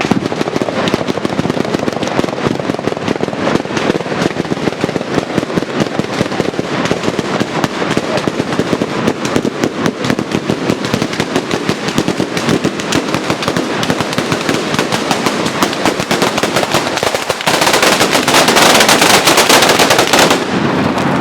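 Batteria napoletana: a long ground chain of firecrackers going off in a rapid, continuous rattle of bangs. Near the end it swells into a louder, denser climax that then cuts off.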